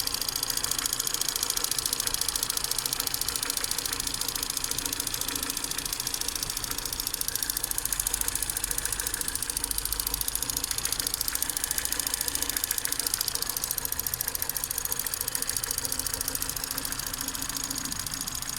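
Ford Fusion EcoBoost petrol engine running steadily with a fast, even ticking over the engine note. This is the unexplained noise that has come on over time, with no cause yet identified.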